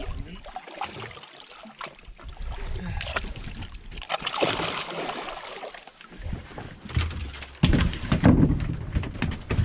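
Seawater sloshing and splashing against a fishing boat's hull as an octopus clinging to the line is worked at the waterline. About three-quarters of the way through, a louder low rumble comes in.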